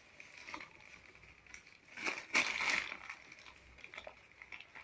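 Sheet of newspaper rustling and crinkling in short bursts as a baby handles it, the longest and loudest rustle about two seconds in.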